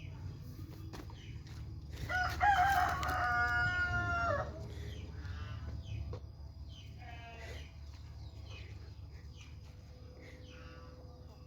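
A rooster crowing once, one long call of about two seconds that starts about two seconds in and drops at the end, followed by fainter, shorter calls.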